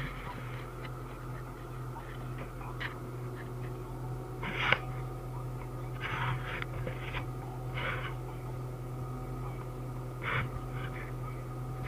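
Caterpillar D5 dozer's diesel engine running steadily, heard from inside the cab as the machine moves, with several short knocks breaking in.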